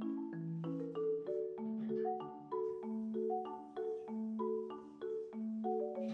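Background music: a steady tune of short struck notes over a repeating low bass line.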